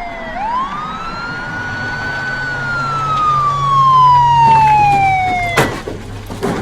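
Police car siren wailing: it sweeps quickly up, then falls slowly in pitch for about five seconds, and cuts off abruptly with a sharp knock about five and a half seconds in. A second knock comes near the end.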